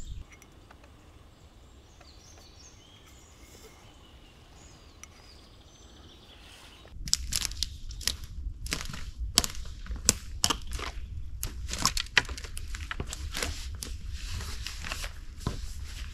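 Footsteps crunching and crackling on dry pine needles and twigs, starting about seven seconds in, over a low rumble of wind on the microphone. Before that it is quiet.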